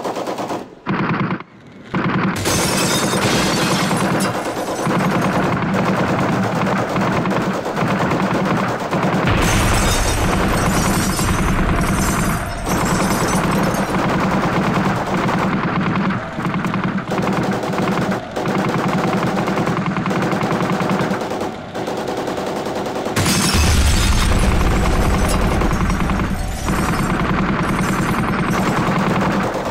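Electronic sound design from a projection-mapping show's soundtrack: a dense, rapid crackling rattle over a steady low hum. A deep rumble comes in about nine seconds in and swells louder about two-thirds of the way through.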